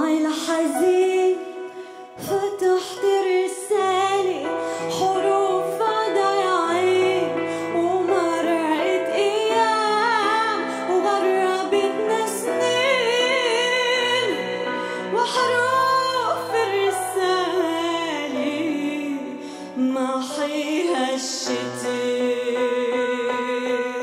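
A woman singing a slow, ornamented melody into a microphone while accompanying herself on a Roland E-A7 keyboard with sustained chords and bass notes. Near the end the voice stops and the keyboard carries on alone.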